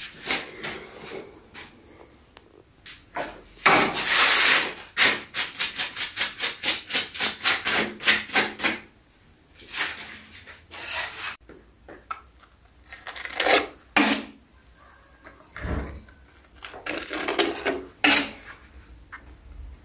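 Metal putty knife scraping along a plastered wall while spreading and smoothing filler: a few longer scrapes and, a few seconds in, a run of quick short strokes at about four a second.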